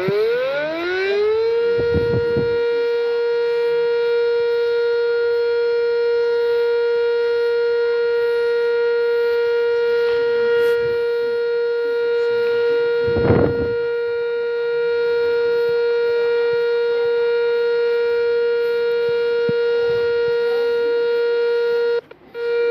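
Outdoor tornado warning siren winding up, rising in pitch over the first second or so, then holding one steady tone with many overtones. There is a brief rush of noise about halfway through, and the siren cuts off abruptly near the end.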